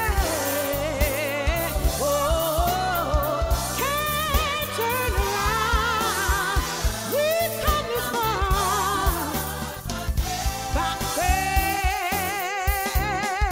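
Gospel song: a voice singing with strong vibrato and runs over a band with a steady drum beat, ending on a long held note near the end.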